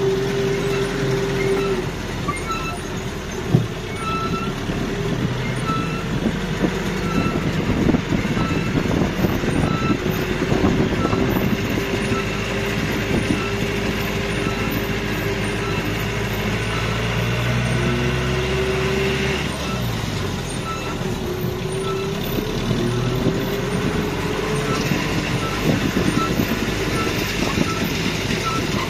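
Land train's towing vehicle driving along, its engine hum rising and falling in pitch with speed. From about two seconds in, a short high electronic beep sounds about once a second, like a vehicle warning beeper.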